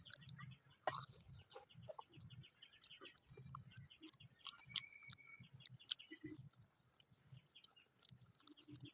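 Faint, scattered bird calls with a few sharp clicks.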